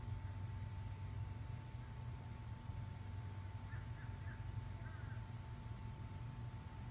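Steady low hum with a constant thin tone running through it, and a few faint short bird chirps around the middle.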